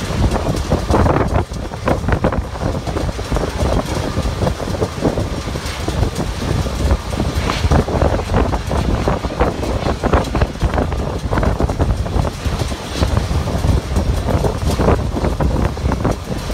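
Gusty wind from the approaching thunderstorm buffeting the microphone, an uneven, fluttering rumble that swells and drops every second or so, over a low background rumble of the airport ramp.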